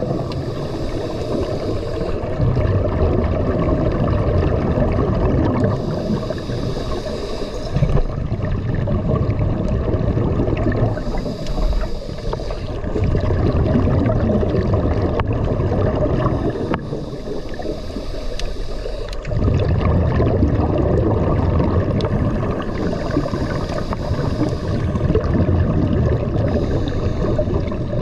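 Scuba diver breathing through a regulator underwater: a hiss comes back about every five to six seconds, with bubbling and gurgling in between as exhaled air bubbles out, over a steady low rumble of water.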